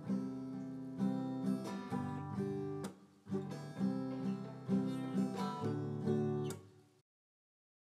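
Outro music with a strummed acoustic guitar in a steady rhythm, fading out and stopping near the end.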